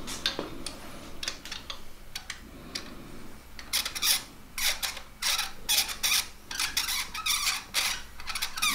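Ratchet wrench clicking through repeated short strokes, about two or three a second, while snugging up the bolt that holds the degree wheel. A few scattered handling clicks come first.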